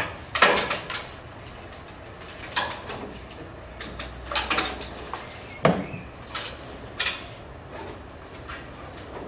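A series of sharp knocks and clatters, about five spread over the span, of hard objects being handled, moved or set down.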